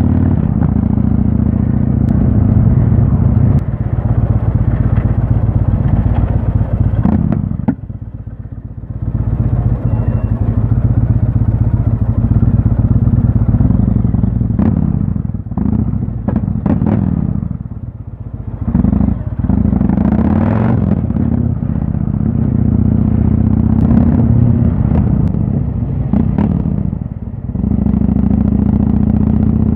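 Motorcycle engine running steadily under way, a low drone. The throttle closes briefly three times, about eight, eighteen and twenty-seven seconds in, and the engine picks up again each time.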